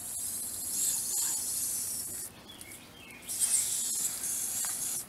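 Garden hose spray nozzle hissing as water sprays onto a foal's coat. It cuts off about two seconds in and starts again about a second later.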